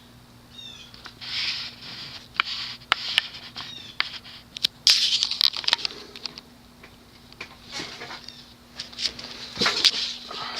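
Hunter Colonial II six-blade ceiling fan running on high, its spinner motor giving a steady low hum that is not obnoxiously loud. Irregular light clicks and several brief rustling noises sound over the hum.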